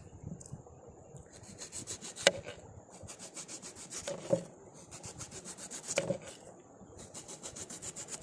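Ladle scraping against a large cooking pot in quick, repeated strokes, with a couple of louder knocks, as the finished tapioca biryani is stirred and dished out.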